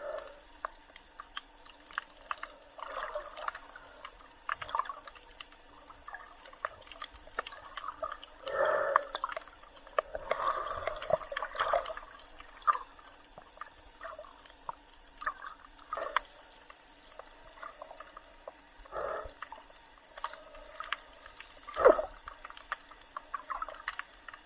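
Water heard from underwater: irregular muffled gurgling and bubbling bursts with many scattered clicks, the loudest burst near the end.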